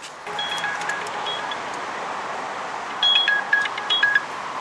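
Two clusters of short electronic beeps in two alternating pitches, one high and one lower, the second cluster the louder, over a steady rushing hiss.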